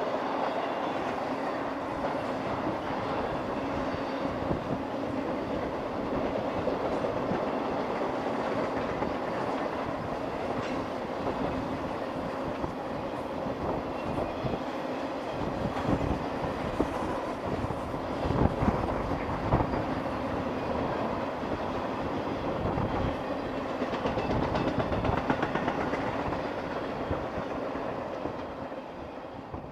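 Freight train's intermodal cars, flatcars loaded with trailers and containers, rolling past. The wheels clatter over the rail joints under a steady rumble, with a few louder clanks around the middle. The sound fades out near the end.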